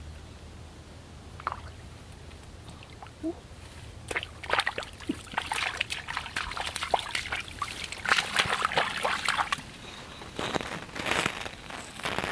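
Shallow water splashing and sloshing in irregular bursts, starting about four seconds in, with a last burst near the end.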